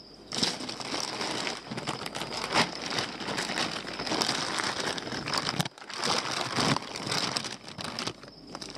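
Plastic fish-shipping bags and newspaper packing in a polystyrene box rustling and crinkling as they are handled, with a brief pause a little past halfway.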